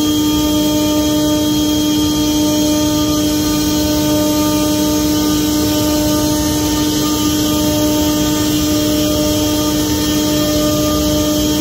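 OMNITECH Mate CNC router spindle running and cutting a wooden panel: a loud, steady hum holding one pitch, with evenly spaced overtones over a rushing noise.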